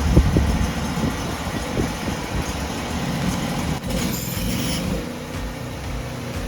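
Portable band sawmill's gasoline engine running, settling to a steadier, slightly quieter note about five seconds in.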